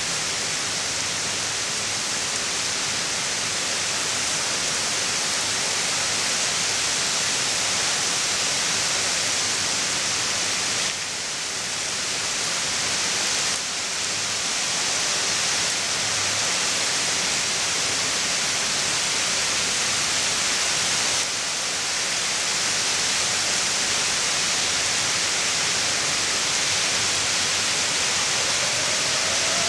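Heavy rain falling steadily in a thunderstorm, a constant hiss with a few brief dips in level. Right at the end, an outdoor warning siren starts to wind up, rising in pitch.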